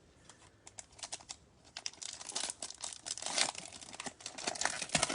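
A foil trading-card pack wrapper being crinkled and torn open, with cards being handled. It is a run of sharp crackles and clicks that starts sparse and grows dense about two seconds in.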